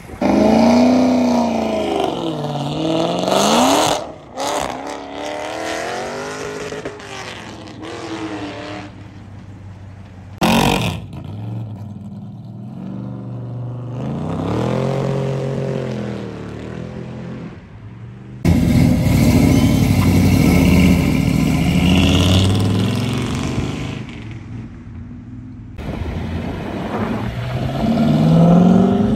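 A run of cars accelerating away past the roadside one after another, in short separate takes. Each engine revs up, drops as it shifts, and fades as the car passes. A red C5 Corvette pulls away with its engine rising in pitch near the end.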